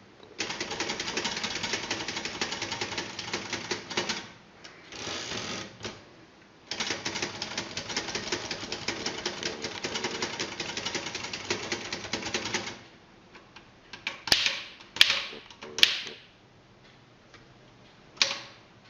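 Old Royal manual typewriter being typed on: keys clacking in two long, fast runs with a short break between them, then a few separate, louder single strokes near the end.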